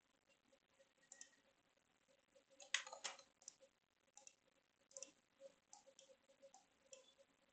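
Faint, scattered clicks of a computer mouse and keyboard, with a louder cluster of clicks about three seconds in.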